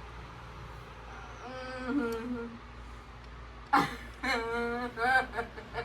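A voice humming short pitched notes, twice, with a sharp click between them, over a steady low background hum.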